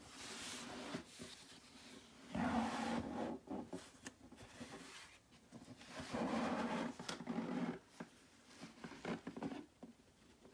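Cardboard shoebox being handled and turned in gloved hands: gloves rubbing and scraping on the box, louder in two stretches about two and six seconds in, with small taps in between.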